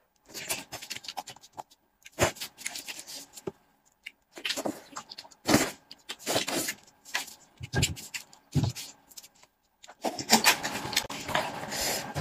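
Close-up eating sounds: braised sheep's head meat being pulled apart by hand and chewed, in irregular wet bursts with clicks and smacks, and a longer, denser stretch near the end.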